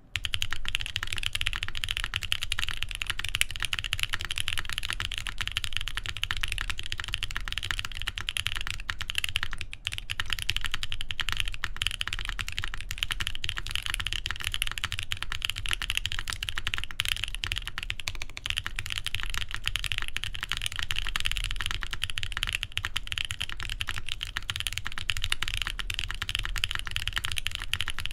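Continuous fast typing on a TGR Jane v2 CE mechanical keyboard with lubed Boba U4T tactile switches, a carbon fibre plate and GMK keycaps: a dense stream of key clacks, with a brief break about ten seconds in.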